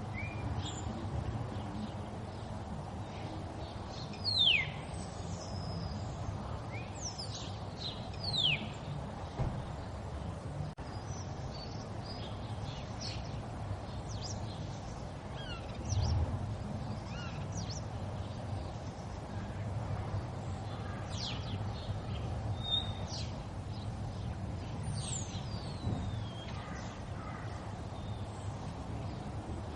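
River water flowing steadily, with many short, high, downward-sliding bird chirps scattered over it. A dull low thump about halfway through.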